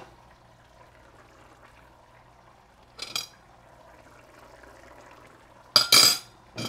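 Pot of curry chicken in a watery sauce simmering with a low steady bubbling, just after hot water has been added. It is broken by a short clatter about three seconds in and two loud, sharp clatters near the end.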